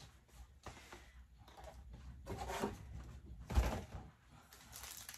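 A cardboard shipping box being handled and plastic mailer bags rustling as they are set out on a table, with a series of light knocks and one dull thump about three and a half seconds in.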